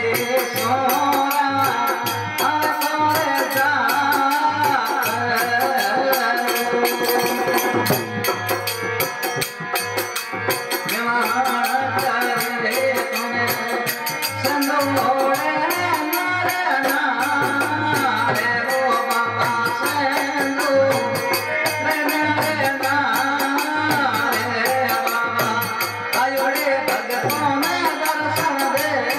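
Rajasthani devotional bhajan: a man singing over an electronic keyboard, with small hand-held metal clappers clicking in quick rhythm and a steady drum beat underneath.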